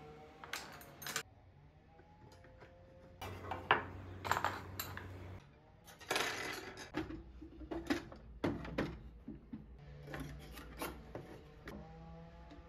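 Dishes and utensils clinking and knocking as kitchenware is handled and set down: a string of separate light clinks and knocks, some louder than others.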